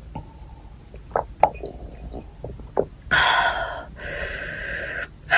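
Close-miked mouth sounds of someone eating cockle bibimbap: scattered soft wet smacks and clicks of chewing, then about three seconds in a loud rushing, hissy sound lasting about two seconds, louder at its start.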